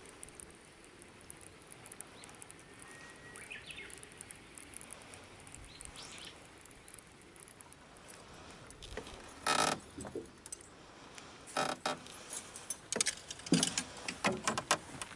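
A quiet background with a few faint chirps, then, from about nine seconds in, a series of sudden knocks and clattering as feet and gear move about on a small boat's deck. The knocks come thickest near the end.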